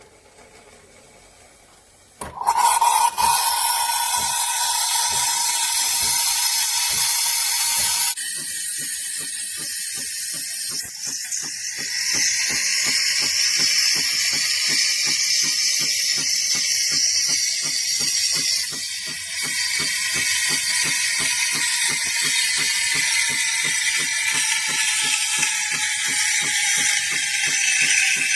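De'Longhi La Specialista Arte Evo espresso machine running: a loud mechanical noise starts about two seconds in, and from about eight seconds it becomes a steady rapid ratcheting pulse, about two or three a second.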